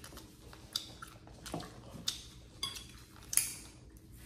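Eating sounds: chewing grilled goat meat, with scattered short clicks and clinks of utensils and dishes. Near the end, kitchen scissors snip the meat. The loudest sound is a sharp click about three and a half seconds in.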